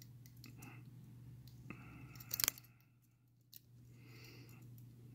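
Faint scraping and light metallic clicks of a lock pick and tension wrench working in a padlock's keyway, with one sharper click about two and a half seconds in.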